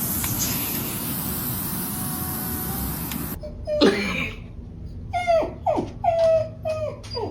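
A steady hiss that cuts off suddenly, followed by a pet animal giving a string of about six short, high-pitched cries. Each cry slides in pitch and most fall off sharply at the end.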